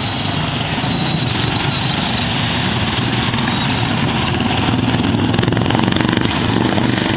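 Racing lawn mower engines running hard, a loud, steady, dense engine sound that swells slightly about five seconds in.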